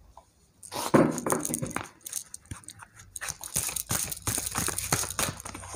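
A deck of oracle cards being shuffled by hand: a quick, uneven run of soft card flicks and slaps starting about a second in.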